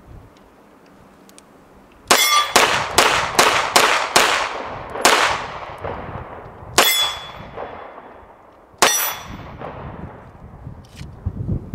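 CZ SP-01 pistol firing: a rapid string of seven shots, then two single shots about two seconds apart, each followed by a ringing echo.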